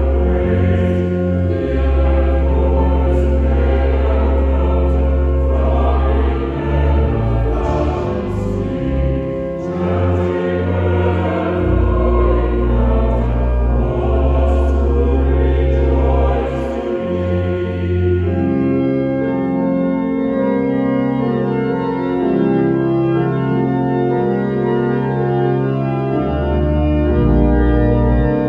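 Choir singing with organ accompaniment; a little past halfway the voices stop and the organ plays on alone in sustained chords with deep bass notes.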